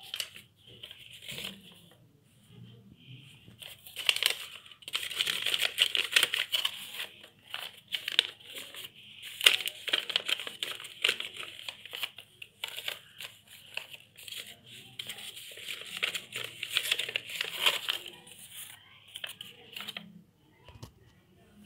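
Folded paper origami salt cellars rustling and crinkling as they are handled. The crinkling starts about four seconds in, runs on in a dense crackly stretch, and stops shortly before the end.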